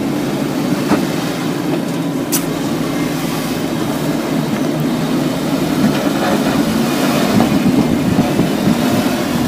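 Jeep Wrangler Rubicon's V6 engine running steadily at low revs as it crawls up a steep slickrock ledge, with one sharp click about two and a half seconds in.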